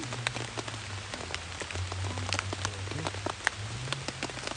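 Raindrops tapping irregularly on the fabric of a dome tent, heard from inside the tent, over a low hum that comes and goes.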